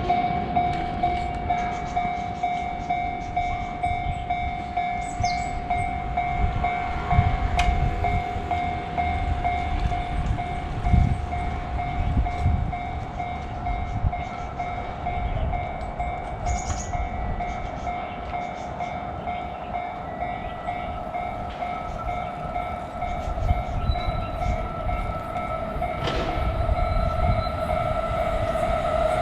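Train running, with a low, uneven rumble and a steady high tone held throughout; a second, higher tone joins about halfway through.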